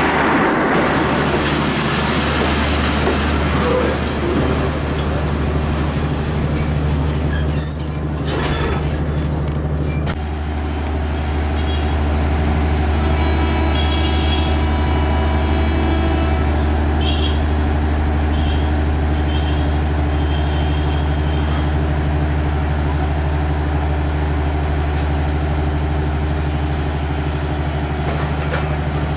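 Passenger coaches of a diesel intercity train rolling past close by: a steady low rumble and rattle of the cars on the rails. The sound changes abruptly about ten seconds in, and a few short high-pitched tones sound a little past the middle.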